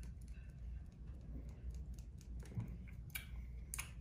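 Small plastic crackling and clicking as fingers pick the wrapper and seal off the cap of a plastic candy spray bottle, with a few sharper clicks in the last second and a half.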